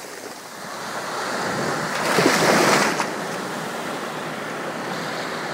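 Mediterranean surf breaking on a sandy beach: the wash swells, a wave crashes loudest about two to three seconds in and drops off suddenly, then the steady hiss of foam and water continues.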